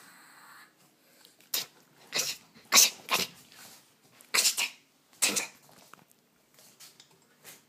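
Two Chihuahuas play-fighting, giving short, harsh vocal bursts, about eight of them, some in quick pairs, the loudest about three seconds in.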